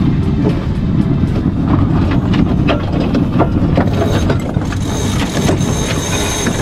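A sailboat's deck winch being cranked by hand, its ratchet clicking at irregular intervals over a loud rush of wind and water.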